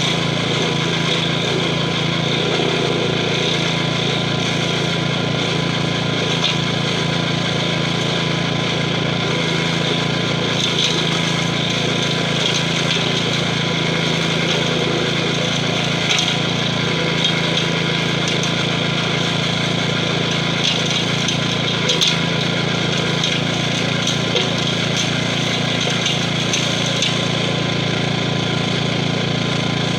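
Gravely 5640 walk-behind tractor's 12 hp Kohler engine running steadily under load while its stump-grinder wheel cuts into a tree stump, with occasional sharp knocks from the cutter teeth and flying chips.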